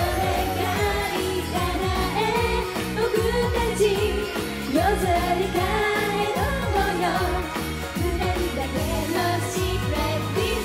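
Three young women singing a J-pop idol song live over pop backing music with a steady beat.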